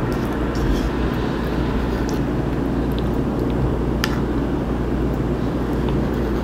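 A steady low rumble, with a light click of a metal spoon against a yogurt cup about four seconds in.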